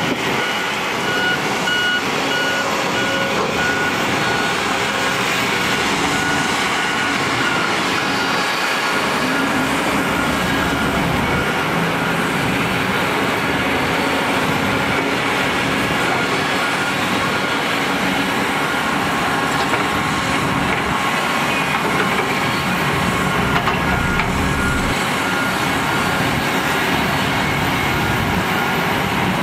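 Heavy earthmoving machinery running steadily, mostly Kobelco hydraulic excavators at work. A back-up alarm beeps in an even run during the first few seconds and again more faintly about two-thirds of the way through.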